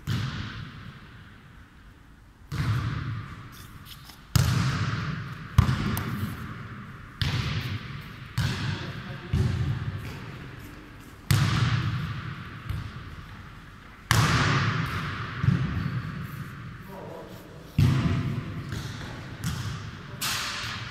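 A football being kicked and bouncing on a sports hall floor during a futnet rally: about a dozen sharp thuds at uneven intervals, each trailing a long echo.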